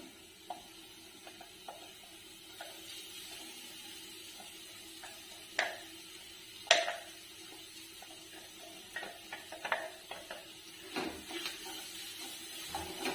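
Scattered light knocks and taps of a steel mixer-grinder jar against a non-stick kadai as crushed coconut is tipped out of it, with two sharper knocks about midway. Toward the end a wooden spatula knocks and scrapes, stirring the coconut in the pan.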